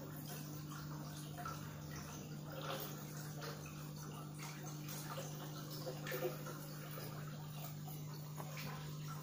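Aquarium water pump running with a steady low hum, water trickling and gurgling in the tank.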